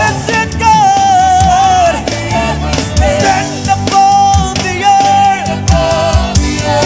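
Gospel praise-and-worship music: a lead singing voice carrying a wavering melody over a band with a steady beat.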